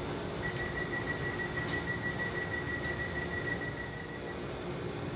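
A single steady high whistle tone, held for about four seconds before it stops, over the steady background hum of a railway station platform.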